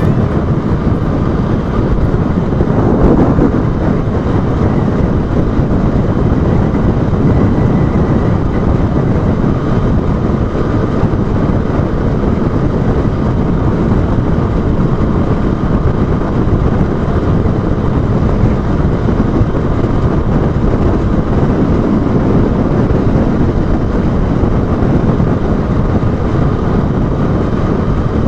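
Steady wind rush over an action camera's microphone while a Honda Bros 160 motorcycle cruises on the highway, its engine running underneath.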